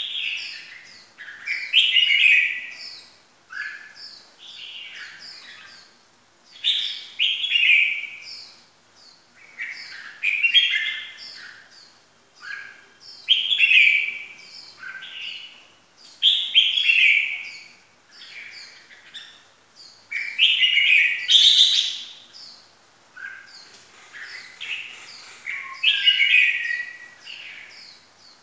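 Red-whiskered bulbul singing: short, bright warbled phrases repeated about every three seconds, with a few quick high notes between them.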